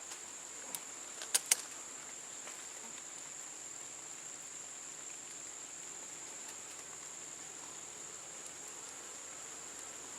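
Steady high-pitched insect chirring that does not change, with three sharp clicks about a second in.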